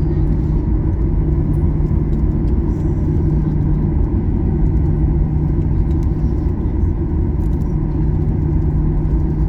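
Steady cabin rumble inside a Boeing 737-800 taxiing on the ground, its CFM56-7B engines at taxi power, with a low steady hum that drops out briefly twice.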